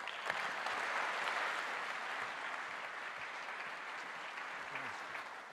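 A large audience applauding. The clapping swells in the first second or so, then slowly eases off.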